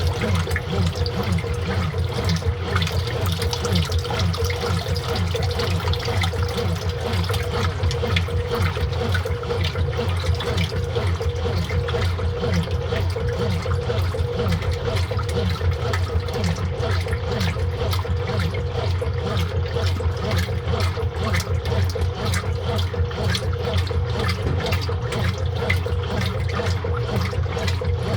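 Brastemp Total 7 kg washing machine running with water rushing through it steadily over a constant low hum.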